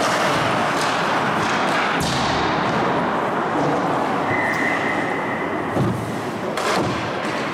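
Ice hockey practice in an indoor rink: a steady wash of skates scraping the ice, broken by a few sharp knocks of sticks and pucks, the loudest about two seconds in and more near the end.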